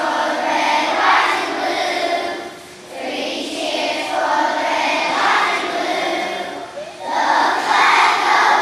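Children's choir singing together, in phrases broken by short pauses for breath about three seconds in and again about seven seconds in.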